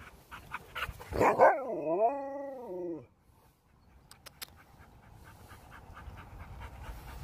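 A northern-breed dog gives a loud bark-like yelp, then a drawn-out, talking-style whine that dips, rises and falls again over about a second and a half. Quieter panting follows.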